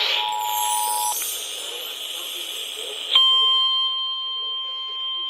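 Emergency Alert System two-tone attention signal holding steady and cutting off about a second in. After a stretch of hiss, a single steady NOAA Weather Radio 1050 Hz warning alarm tone starts abruptly about three seconds in and holds.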